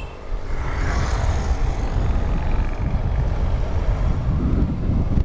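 Honda NC750X parallel-twin motorcycle engine running as the bike pulls away and rides on, a steady low rumble that swells about a third of a second in, with wind rush on the camera's microphone.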